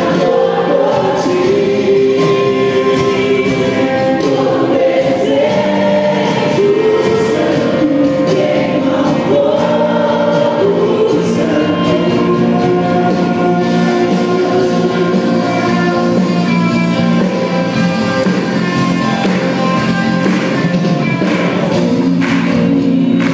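Christian worship music: singing voices hold long, slowly shifting notes over sustained chords, steady and unbroken.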